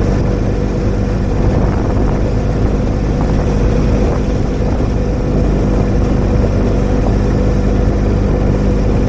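Small utility vehicle's engine running steadily at an even pitch while the vehicle drives along.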